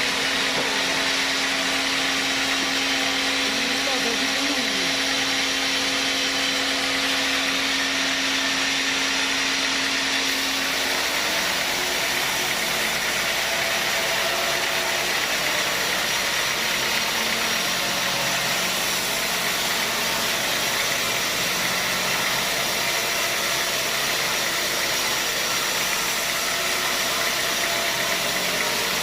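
Sawmill machinery running steadily with a loud, even mechanical noise; a steady hum in it stops about eleven seconds in.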